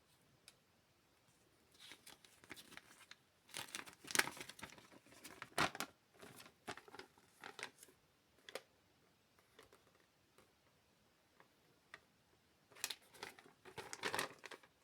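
Plastic LEGO parts bag crinkling in bursts as it is handled, with a few separate sharp clicks in between.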